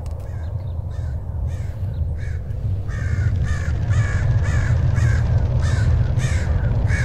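Crows cawing, a dozen or so short harsh caws coming a few times a second, faint at first and louder from about three seconds in, over a steady low rumble.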